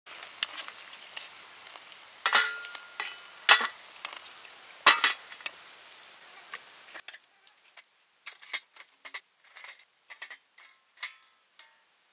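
Hot oil sizzling as snake deep-fries, with a few loud clanks of a metal utensil against the pan. From about seven seconds in the hiss stops and short, crisp crackles and crunches follow with silence between them.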